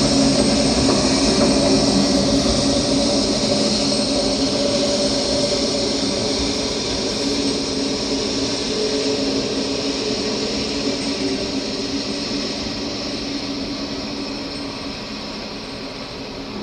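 Steady mechanical rumble of recorded vehicle or engine noise with a few held low tones, played as a performance soundtrack and slowly fading out.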